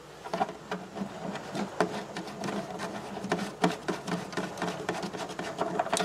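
A hand rubbing a pad against the hard plastic inner wall of an ice chest, quick irregular scratchy strokes a few times a second that stop abruptly at the end.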